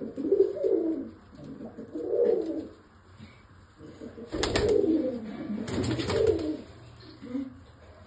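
Domestic pigeons cooing, several low warbling coos in bouts one after another. About halfway through there are two brief bursts of noise.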